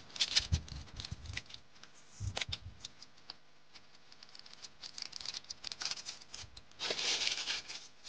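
Crinkling, rustling and light clicks of cooking gear and a food packet being handled while instant noodles are prepared, with a few soft knocks in the first couple of seconds and a denser burst of crinkling near the end.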